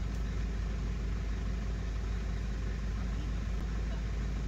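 Diesel truck engine idling steadily: an even low rumble that holds the same pitch throughout.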